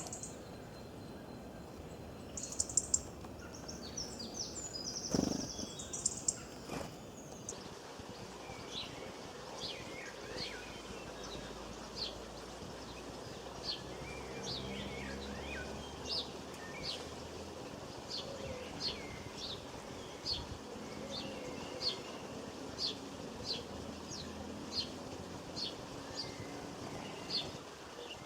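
Small birds chirping over a steady background hiss: a flurry of high, quick calls and trills in the first several seconds, then short sharp chirps repeating about once a second.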